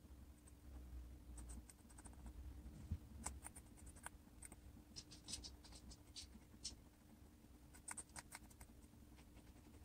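A guinea pig chewing a snack: faint, irregular crisp crunches and clicks coming in small clusters, over a steady low hum.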